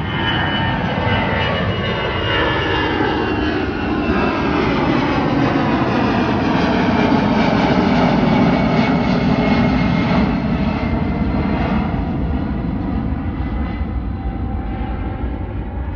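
Airbus A319 jet airliner climbing out after takeoff and passing overhead: a steady engine roar with tones that sweep downward as it goes over, loudest about halfway through, then fading as it flies away.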